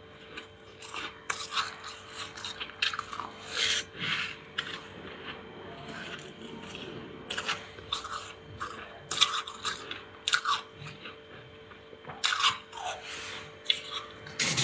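Soft freezer frost being crunched between the teeth and scraped off the freezer wall with a spoon, in irregular scratchy strokes.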